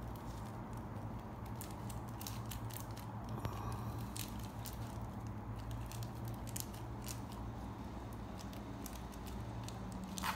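Soft, scattered crackles and ticks of dried catnip being crumbled and dropped into a cardboard dish, over a steady low hum.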